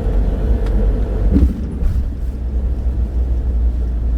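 A road vehicle on the move: a steady low rumble of engine and road noise, with one brief sound about a second and a half in.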